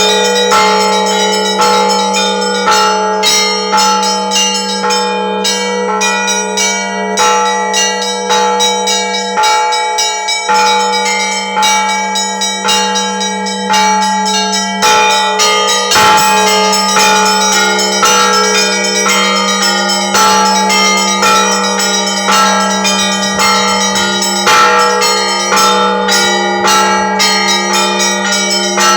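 Russian Orthodox church bells rung by hand: a quick, dense pattern of strikes on the smaller bells over the steady deep hum of a large bell, which breaks off briefly about ten seconds in.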